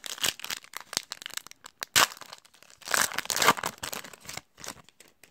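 Foil wrapper of a Panini Prizm basketball card pack crinkling and tearing as it is ripped open by hand, a run of sharp crackles, loudest about two and three seconds in.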